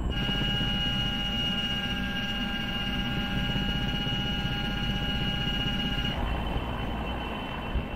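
Helicopter in flight, its rotor and turbine engine running steadily, heard from inside the cabin with a steady high turbine whine over a low rumble. About six seconds in the whine drops away, leaving the low rotor and engine noise.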